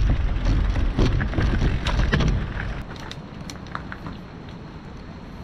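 Mountain bike rolling down rough trail: wind buffeting the microphone, with the bike rattling and knocking over bumps. About three seconds in it all drops much quieter, leaving a few light clicks.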